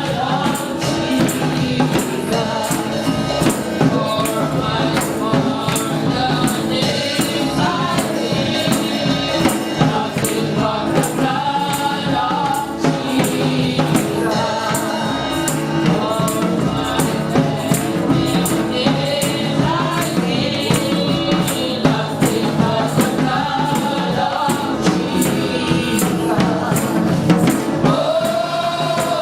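Gospel music: voices singing together over a tambourine struck on a steady beat.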